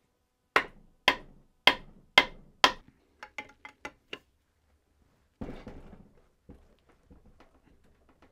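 Hammer blows on a seized centre main bearing cap of a Reliant engine, knocking it to free it: five hard, ringing strikes about half a second apart, then about six lighter, quicker taps. About five seconds in comes a brief rattling clatter, then a few faint clicks.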